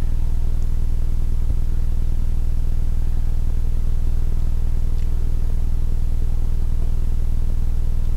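A steady low hum, made of several even low tones, running unchanged throughout, with one faint tap about five seconds in.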